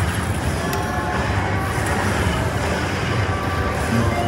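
Lightning Link slot machine playing its win celebration music and jingles while the win meter counts up, over a steady casino din.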